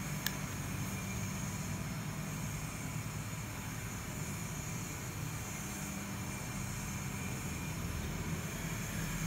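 Steady low hum with a constant hiss, unchanging throughout, with one short click just after the start.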